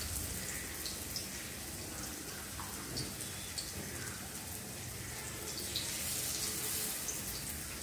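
Battered raw-banana pakoras deep-frying in hot oil in a steel kadhai: a steady sizzle with scattered small pops, swelling slightly near the end as another battered slice goes into the oil.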